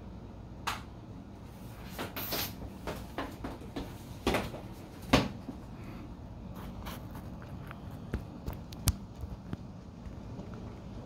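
A scattering of irregular light clicks and knocks, the loudest about five seconds in, over a low steady background rumble.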